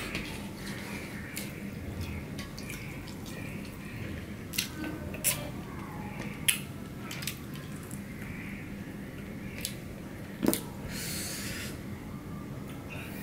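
Eating by hand from a stainless steel plate: fingers scraping the last food together on the plate, with a handful of sharp, short clicks from about four seconds in and a brief rustle near the end.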